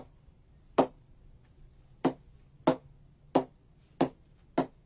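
A cricket ball bounced again and again on the face of an SG IK Ultimate cricket bat, seven sharp knocks about two-thirds of a second apart, testing the blade's ping. The tester first thought the blade a little hard but judges it fine.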